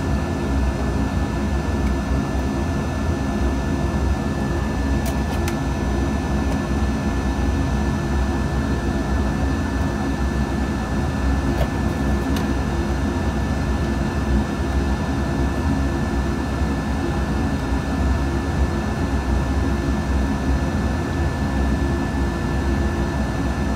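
Steady fan hum and hiss with a fairly high-pitched whine, unchanging throughout. A few faint clicks about five and twelve seconds in.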